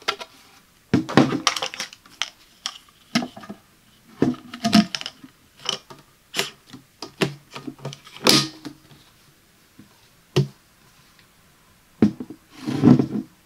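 Hard plastic food storage container and lid being handled: an irregular series of taps, clicks and short scrapes of plastic on plastic, as the lid is fitted and its latches are snapped shut.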